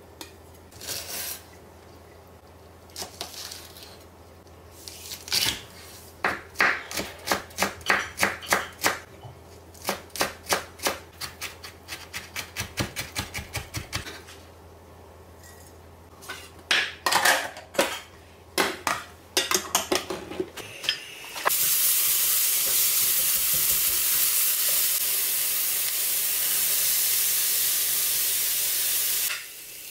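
Quick runs of knife strokes on a cutting board, at about four a second at their fastest. About two-thirds of the way in they give way to steady sizzling of food frying in a pan, which stops shortly before the end.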